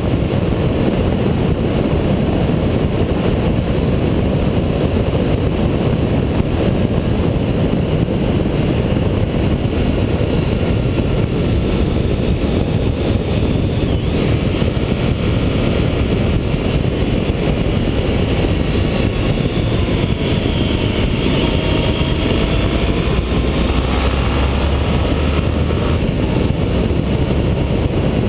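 Honda ST1300 motorcycle cruising on the open road: a steady rush of wind and road noise over the low drone of its V4 engine. Faint engine tones rise and fall in the second half.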